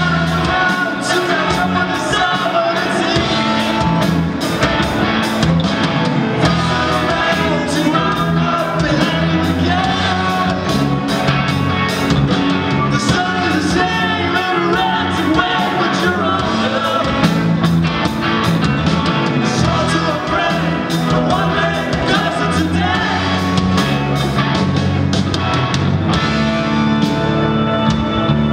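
Rock band playing live: electric guitars, bass guitar and drums keeping a steady beat, with a man singing lead.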